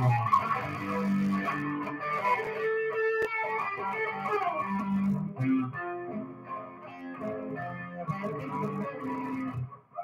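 Electric guitar played live, picking out a run of changing notes and chords.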